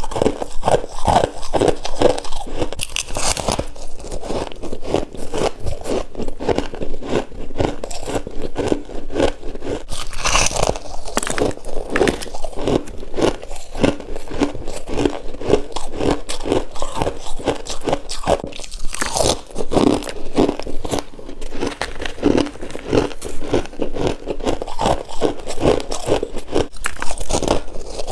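Freezer frost being bitten and chewed close to the microphone: steady, rapid crunching that goes on throughout.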